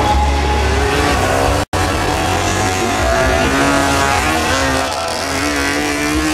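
Freestyle motocross dirt bike engines revving, their pitch rising and falling, with the sound cutting out for an instant a little under two seconds in.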